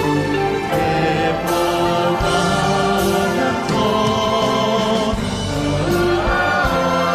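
Music for a khon dance-drama, with a choir singing long held notes over the accompaniment.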